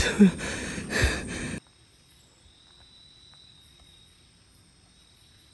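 Rustle of someone pushing through leafy undergrowth, which cuts off suddenly after about a second and a half. Then comes a quiet tropical night with insects calling in steady high tones.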